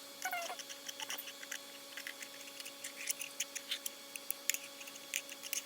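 Irregular light clicks and taps, several a second and uneven in spacing, over a faint steady hum.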